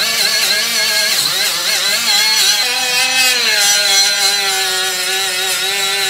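Milwaukee M12 right angle die grinder running an abrasive disc against a rusty brake rotor at speed setting 3, the motor whine over a hiss of the disc scouring rust off the metal. The whine wavers as the disc is pressed in, and drops in pitch a little over three seconds in, staying lower under the load.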